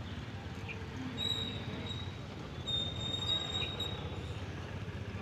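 Freight train of flat wagons loaded with concrete sleepers rolling slowly past, a steady rumble of wheels on rail. A high-pitched squeal rises over it briefly about a second in and again for about a second in the middle.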